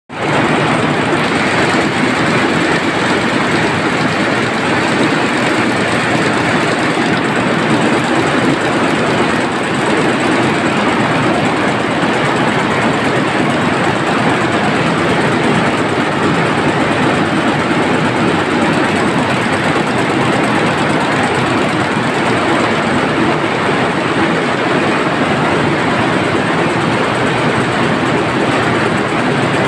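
Water jet looms weaving at full speed: a loud, steady, dense mechanical clatter that does not let up.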